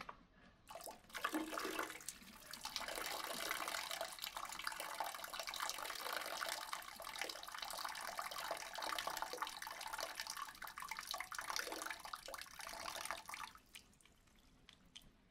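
Water running steadily, starting about a second in and stopping shortly before the end.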